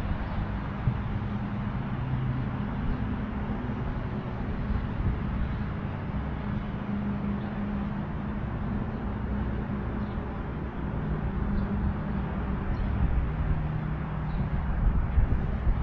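Steady traffic noise, with low engine hums that shift in pitch as vehicles pass.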